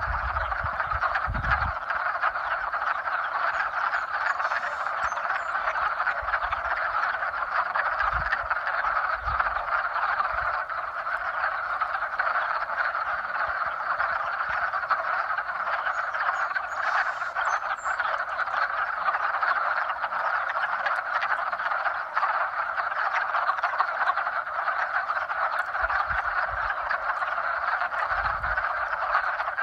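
A dense breeding chorus of many frogs calling at once, their overlapping mating calls merging into a steady, unbroken din.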